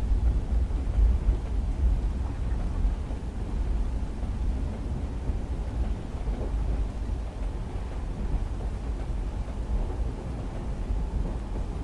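Train-in-the-rain ambience: a deep, steady rumble with rain on a window over it.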